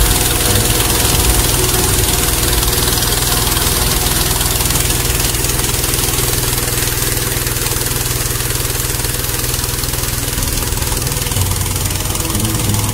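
Engine-driven inflator fan running steadily, blowing cold air into a hot air balloon's envelope to fill it before the burner is lit.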